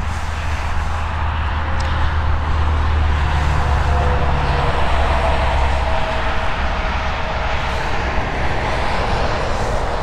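Deep rumble of a large engine passing by, with a drone that falls slightly in pitch. The lowest part of the rumble drops away about six seconds in, while a steady noise carries on.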